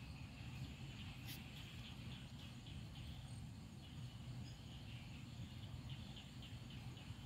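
Quiet rural outdoor ambience: faint insect and bird chirps over a low steady rumble, with one light click about a second in.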